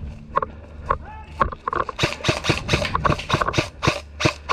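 Footsteps crunching quickly through dry leaves and brush, about four or five steps a second, starting about two seconds in after a few scattered knocks.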